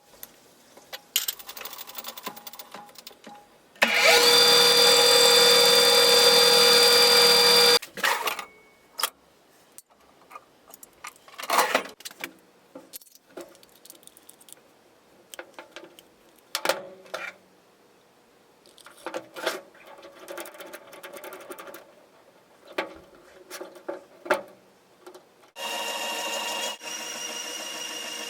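An electric machine-tool motor runs loudly with a steady whine for about four seconds, then stops abruptly. Scattered clicks and knocks of metal being handled follow. Near the end a motor starts again and runs steadily, more quietly.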